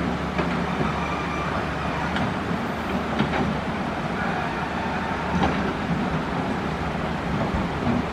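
Caterpillar excavator's diesel engine running steadily under load, with a few sharp knocks and scrapes of the bucket working in coral rock.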